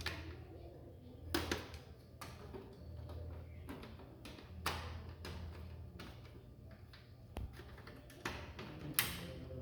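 A few scattered clicks and light knocks of computer case parts being handled and fitted, over a low steady hum.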